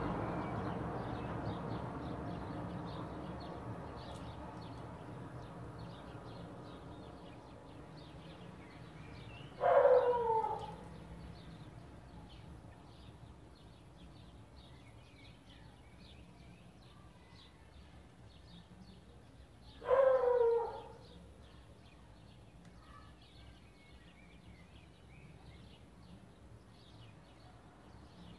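Outdoor ambience: a low rumble fades away over the first several seconds. Then come two loud animal calls about ten seconds apart, each about a second long, with faint chirps throughout.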